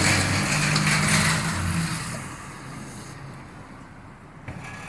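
A car driving past on a rain-wet road: tyre hiss and engine hum fading away after about two seconds.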